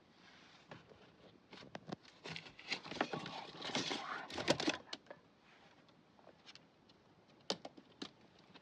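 A small rabbit moving about: scattered light taps and clicks, with a denser stretch of rustling and scratching from about two to five seconds in.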